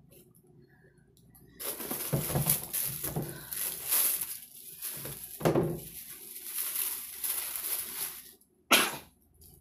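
Thin plastic wrapping crinkling and rustling as it is handled and pulled out of a cardboard shoebox, starting about a second and a half in, with one short knock near the end.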